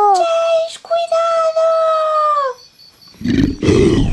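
Long drawn-out high wailing cries that fall in pitch and stop about two and a half seconds in. After a brief pause, a loud, rough roar for the attacking T-Rex starts.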